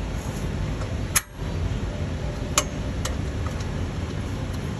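A few sharp metallic clicks and clinks from a hand wrench on the EGR valve actuator arm and its nut, the loudest about a second in and again near the middle, over a steady low hum.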